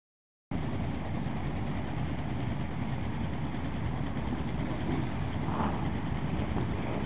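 Half a second of silence, then the engines of a group of Yamaha V-Max V4 motorcycles running in a steady, dense low rumble as the bikes move along in a line.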